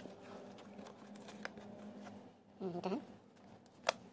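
Faint rustling and scraping of a hand working along the edge of a thin fiberglass fairing panel, with one sharp tap near the end.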